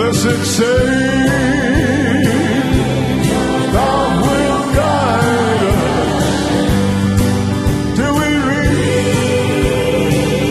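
Live gospel band playing, with piano, guitars and drums and voices singing over a steady beat.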